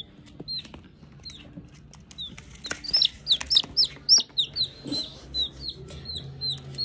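A chick peeping: short, high, falling peeps, a few at first, then a fast run of louder peeps about three seconds in, settling into a steady peep about three times a second.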